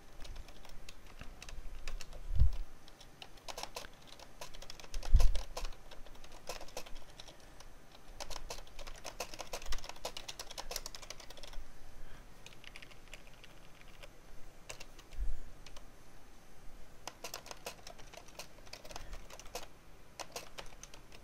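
Typing on a computer keyboard in irregular bursts of keystrokes, as an instant-message reply is written. Two dull low thumps stand out, about two and a half and five seconds in.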